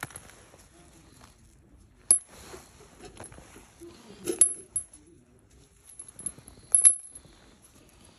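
Spent brass cartridge casings dropped by hand into an upturned helmet already holding a pile of casings, clinking with a bright metallic ring. Several separate clinks, the sharpest about two, four and a half and seven seconds in.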